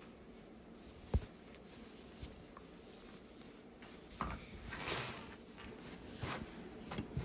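A person with a stuffy nose sniffling and breathing in short breaths in a small room. A sharp click comes about a second in.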